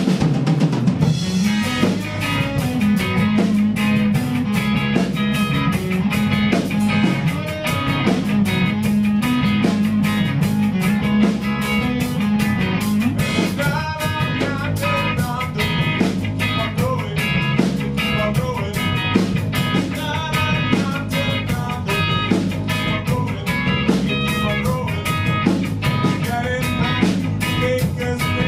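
A live band playing a song, with guitar over a steady drum-kit beat.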